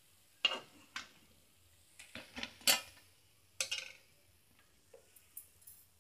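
Steel kitchenware clinking: a metal slotted frying spoon and steel plate and kadai knocking together in a string of sharp clinks, the loudest a little under three seconds in, with fainter ones near the end.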